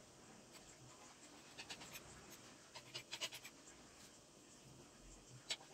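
Faint taps and scraping of a knife and hand on a floured marble counter as rolled manti dough is cut into small pieces and pushed together. Small groups of quick clicks come about one and a half and three seconds in, with one sharper click near the end.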